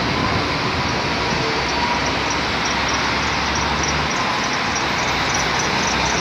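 Steady road-traffic noise from cars driving along the road below, with a deeper rumble from about one and a half to four seconds in.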